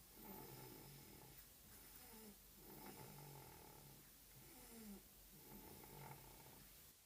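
A sleeping person snoring faintly, with a soft, low snore on the breath about every second or so, some sliding down in pitch.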